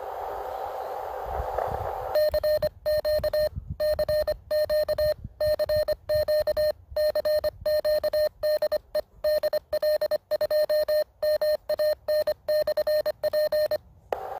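Morse code sidetone from a (tr)uSDX QRP transceiver as a CQ call is keyed on 40 metres: a single steady beep, switched on and off in dots and dashes. It starts about two seconds in, after a short stretch of receiver hiss.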